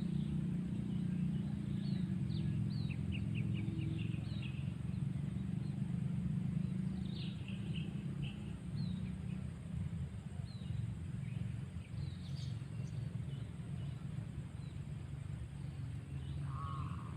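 Small birds chirping in short high notes and quick trills over a steady low hum, with a brief lower call near the end.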